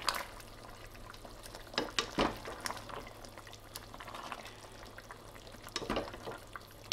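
Wooden spoons stirring and turning chicken pieces in a stainless steel pan of simmering tomato sauce: wet, sloshing stirring with a few short knocks, the loudest about two seconds in and again near the end.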